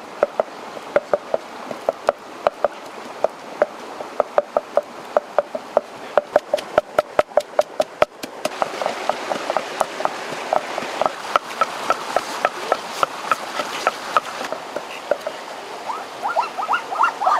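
Wooden pestle pounding red chillies in a wooden mortar: a steady rhythm of short knocks, about two to three a second. A stream rushes in the background from about halfway on.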